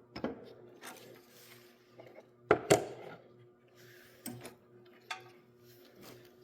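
Tools clinking and knocking on metal while the old fuel solenoid is worked loose from the bottom of a Kohler engine's carburetor: scattered clicks and knocks, two sharp knocks about halfway through the loudest, over a faint steady hum.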